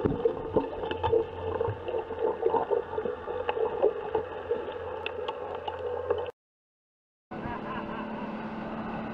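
Underwater sound picked up through an action camera's housing: a muffled, steady rumble with scattered sharp clicks and bubbling, which cuts off about six seconds in. After a second of silence, a motorboat runs at speed, its steady engine hum under the rush of the wake.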